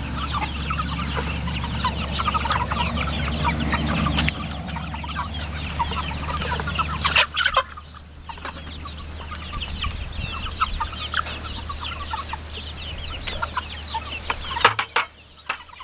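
A flock of young chickens clucking and peeping, many short calls overlapping, over the low rumble of a passing truck that drops away about halfway through.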